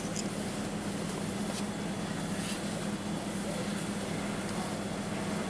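A steady low hum over a noisy outdoor background, with the rising tyre and engine sound of a pickup truck approaching on the highway near the end.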